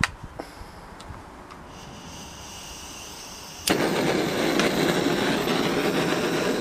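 Hand-held gas blowtorch: a few small clicks and a faint high hiss, then a bit under four seconds in it lights suddenly and burns with a loud, steady rushing noise. The torch is heating a shotgun's steel action for soft brazing.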